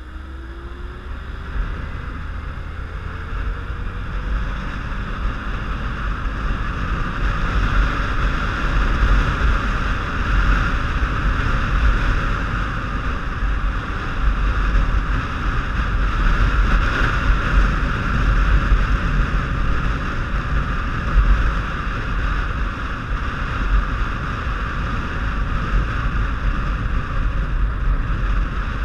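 Motorcycle on the move, heard through a helmet-mounted camera: a steady rush of wind on the microphone over a low engine and road rumble. It grows louder over the first several seconds as the bike picks up speed, and a faint rising engine note can be heard early on.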